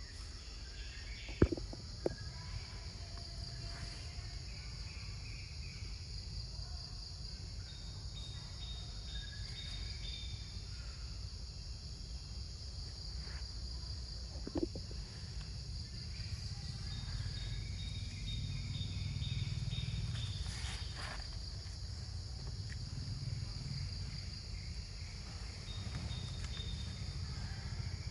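Steady insect chorus, a constant high-pitched buzz, over a low rumbling background, with a few sharp clicks or knocks: two close together near the start and one about halfway through.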